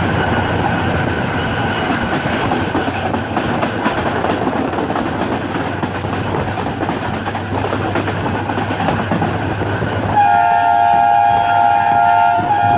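Train running on the rails with a steady rumble and wheel clatter. About ten seconds in, a locomotive's multi-tone horn sounds for about two seconds, breaks off briefly, then sounds again.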